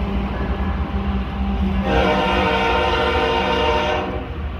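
Freight train passing: a steady rumble of covered hopper cars rolling on the rails. From about two seconds in, a train horn blows one blast of about two seconds, stopping abruptly.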